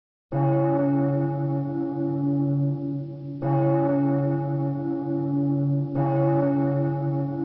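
A single church bell tolling, struck three times about three seconds apart, each stroke ringing on with a deep hum until the next strike.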